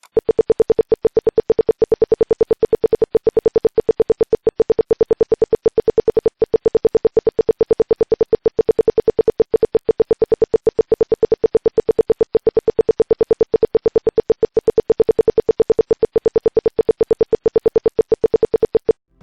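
A home-made security alarm's buzzer sounding, the alarm triggered: one fixed tone beeping rapidly and evenly, about eight beeps a second, without change, then cutting off suddenly near the end.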